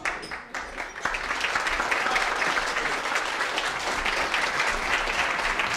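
Room of people applauding: a few scattered claps at first, then full, steady clapping from about a second in.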